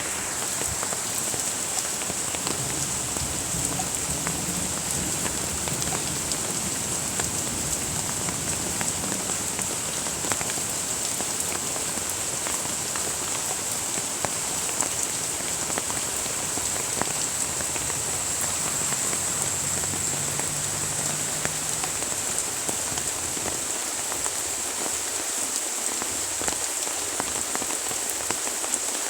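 Steady rain falling, with many individual raindrops ticking close by.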